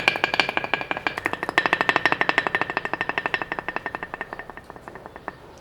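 Rapid, evenly spaced percussive strikes on a household object played as a percussion instrument, about ten a second, each with a bright ringing pitch. They fade away gradually and stop about five seconds in.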